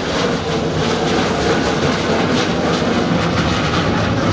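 Boeing 727 trijet's engines, loud and steady, as the airliner flies past.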